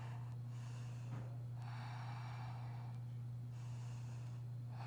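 A person breathing audibly into the microphone, two long breaths in a row, over a steady low electrical hum.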